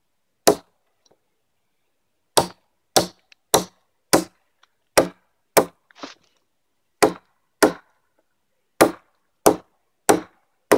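A light pack axe, a hatchet head on a 19.5-inch handle, chopping into a fallen log with short, careful strokes: about a dozen sharp chops in small runs with brief pauses between.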